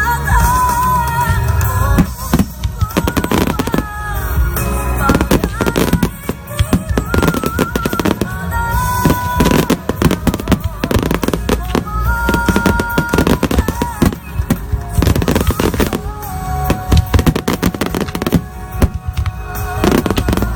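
Fireworks finale: many shells bursting and crackling in rapid, irregular succession, with a deep rumble beneath, over music with a melody.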